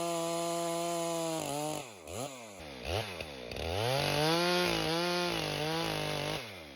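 Chainsaw running at full throttle, its pitch dipping and rising twice, then held lower with a wavering pitch as it cuts through a dead Douglas fir log, dropping away near the end.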